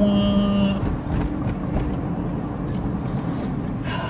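A deep, loud air horn blast holds one steady note and cuts off just under a second in. The car's engine and road noise run on after it.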